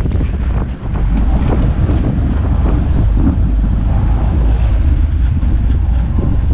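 Sportfishing boat's engines running hard with water churning at the stern, under a loud steady rumble of wind buffeting the microphone.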